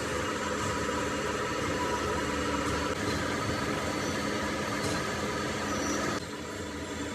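Workshop machinery running steadily with a mechanical drone. About six seconds in, part of the sound drops away and it gets a little quieter.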